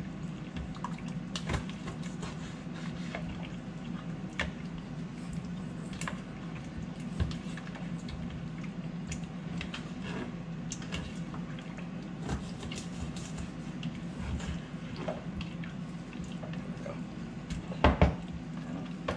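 Raw chicken wings being worked by hand in a plastic bowl and cut on a plastic cutting board: wet squelching and scattered clicks and knocks of the knife on the board, over a steady low hum. A couple of louder knocks come near the end.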